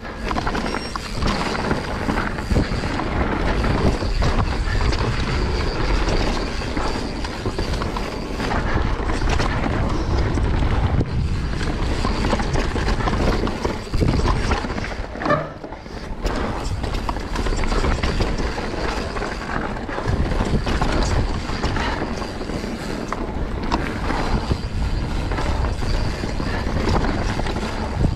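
Mountain bike descending a dry dirt trail at speed: steady wind rush over the camera microphone mixed with tyre roar on dirt and the bike rattling and clattering over roots and rocks, easing off briefly about halfway through.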